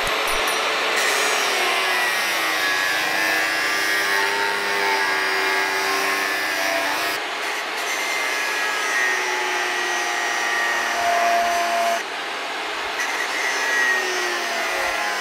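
Electric angle grinder with an abrasive cut-off disc cutting through a steel blade, throwing sparks; its whine wavers in pitch as the disc bites into the metal under load.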